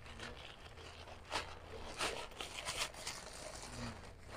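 Plastic bag rustling and crinkling as it is handled, in several short bursts, with light knocks of things on a wooden table.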